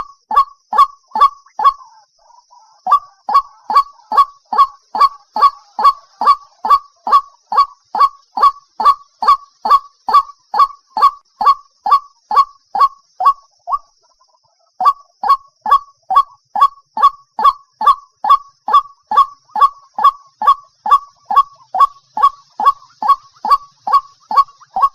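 White-breasted waterhen (dahuk) calling: a loud, monotonous run of identical short notes, about two a second. The run pauses briefly about two seconds in and again midway. This is a lure call of the kind played to draw the birds in close.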